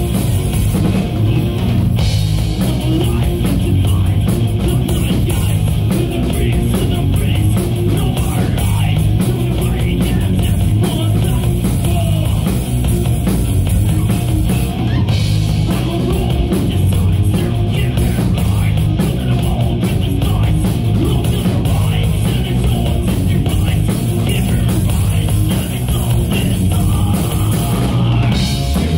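Live rock band playing at a steady loud level: electric guitars over a drum kit.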